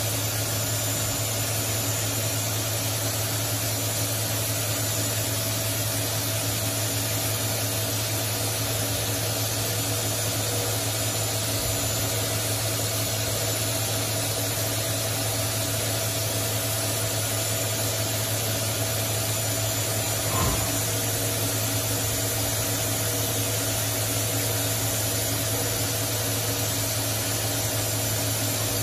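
CNC vertical milling machine running and cutting a metal plate held on a ceramic vacuum chuck: a steady low hum with a constant whine and an even hiss. A single short knock about two-thirds of the way through.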